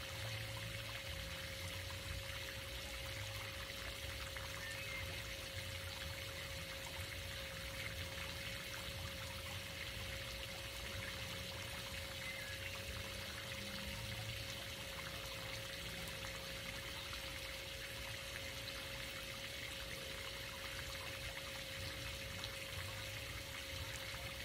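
Pool fountain jet arcing water into the pool, a steady splashing trickle, with a faint steady hum underneath.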